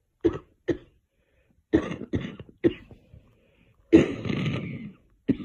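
A girl coughing repeatedly in short, separate bursts. There are two coughs, then a quick run of three, then a longer, drawn-out one lasting about a second, and one more near the end.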